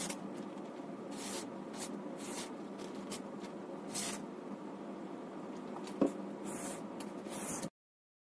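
Boning knife edge slicing through a sheet of printed paper to test its sharpness: a series of short, hissing rasps at uneven intervals, one per cut. A single sharp knock sounds about six seconds in, over a steady background hum.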